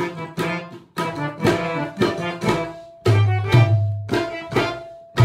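Harmonium and tabla playing an instrumental passage: a held reed melody on the harmonium over quick tabla strokes. There is a brief gap about a second in, and low sustained notes from about three seconds in.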